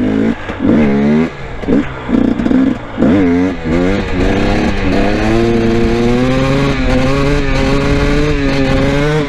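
Two-stroke dirt bike engine blipped several times, each blip a quick rising and falling note, then held at a steady, slightly wavering pitch from about five seconds in as the bike is held in a second-gear wheelie.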